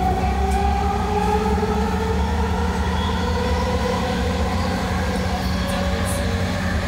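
SkyTrain car running on its elevated guideway, heard from inside the car: a steady low rumble with a motor whine that rises in pitch over the first few seconds as the train picks up speed, then levels off. The whine comes from the train's linear induction motor.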